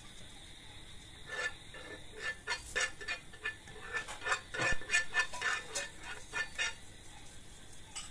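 A spatula scraping and tapping against a non-stick frying pan as it spreads a little oil over the pan: an irregular run of light scrapes and clicks over several seconds, with one sharper knock about two thirds of the way through.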